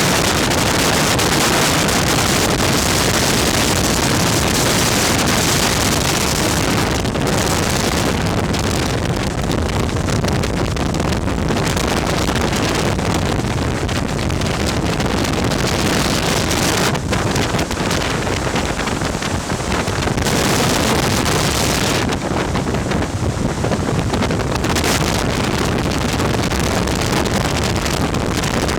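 Loud, steady rush of air driven by a VOD-40 ventilation fan, with wind buffeting the microphone; the highest part of the hiss drops away briefly several times.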